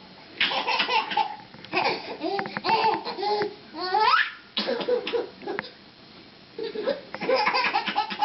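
Baby laughing in repeated bursts, with a rising squeal about four seconds in.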